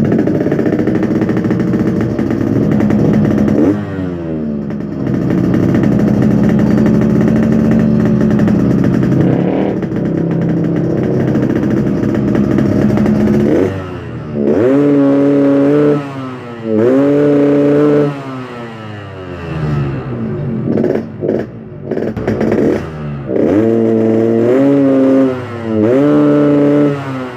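Yamaha RX-King's two-stroke single-cylinder engine being revved while parked: held at high revs for a long stretch with two brief dips, then blipped four times, each rise levelling off flat before dropping back. The revs will not climb higher and the pull lacks punch at the top end, which the mechanic puts down to the engine running too rich at high revs.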